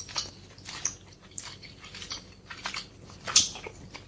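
A person biting and chewing food close to the microphone: irregular short mouth and bite sounds, the loudest about three and a half seconds in.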